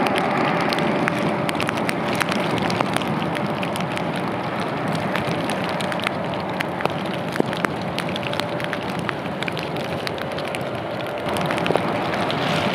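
Jet engine rush of a Boeing 737-9 MAX's CFM LEAP-1B engines at go-around thrust, slowly fading as the aircraft climbs away, then swelling again near the end. Raindrops tick sharply throughout.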